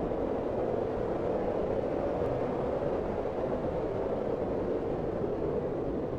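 Blizzard wind blowing in a steady, even rush, with no separate gusts standing out.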